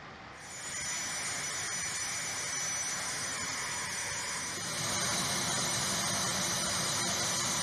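Steady flight-line machinery noise: an even hiss with faint high whining tones, growing a little louder about five seconds in.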